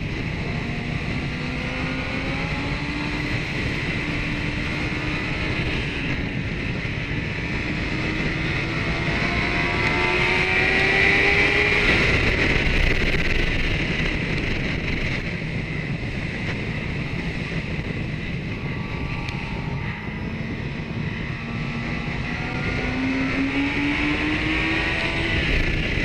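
Kawasaki ZX-10R inline-four engine accelerating, its note climbing slowly over about ten seconds and climbing again near the end, under heavy wind rush on the onboard microphone.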